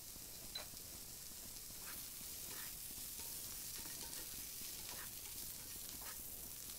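Potato cubes and green beans frying in a pan of oil and butter, with a faint, steady sizzle. A few light clicks come as the food is stirred.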